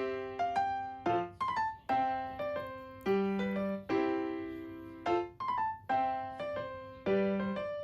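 Background piano music: a light tune of struck notes that ring and fade, with a phrase repeating about every two seconds.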